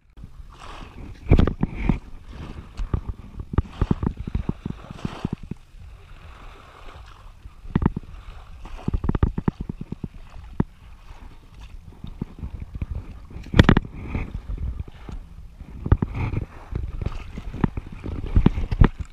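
Wind buffeting the microphone in irregular low thumps and rumble, with water sloshing at the shallow shoreline.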